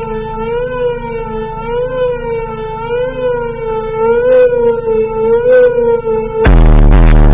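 Siren-like wailing tone in a track played over a Rockford Fosgate car audio system, rising and falling about once a second. About six and a half seconds in, the beat drops with heavy bass, very loud.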